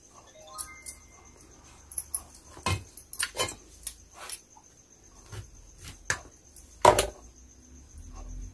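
Clicks and light knocks of kitchen handling, a steel knife and bangles against steel plates, as fried capsicum bajji are split and stuffed; the loudest knock comes about seven seconds in. A cricket chirps steadily and faintly behind.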